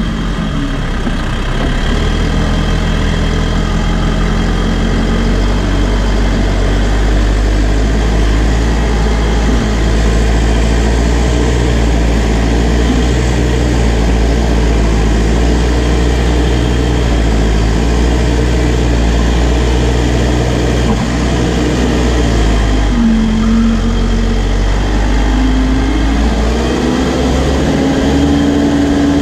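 New Holland B95 backhoe loader's diesel engine running steadily under load while the front bucket pushes dirt. About 23 seconds in a higher tone comes in and rises as the loaded bucket is raised.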